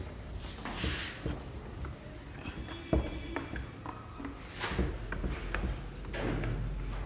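A handheld eraser wiping a whiteboard in several rubbing strokes, with a single sharp knock about three seconds in.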